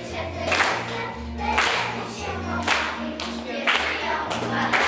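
A group of children singing together over a recorded backing track, with a stepping bass line and a steady beat of about two strokes a second.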